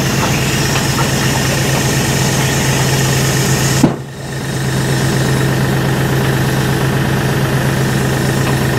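A dump trailer's electric hydraulic pump runs with a steady hum as the raised bed is lowered. About four seconds in there is a sharp click and the sound drops briefly, then it builds back up and runs on.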